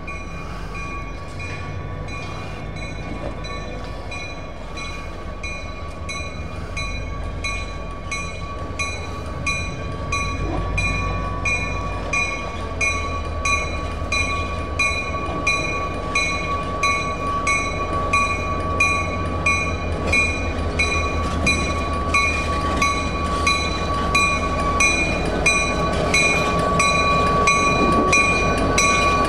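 EMD GP30 diesel locomotive, turbocharged V16 two-stroke engine, running as it draws slowly closer with a passenger train, getting steadily louder. Over it the locomotive bell rings in an even rhythm, a little faster than once a second.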